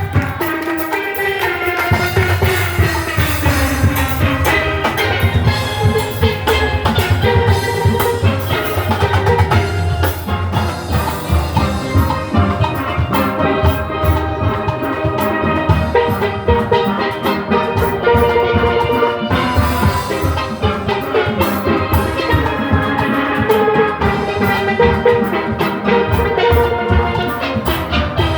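A youth steel orchestra playing: many steelpans ringing out a fast melody and chords over a steady drum and percussion rhythm section.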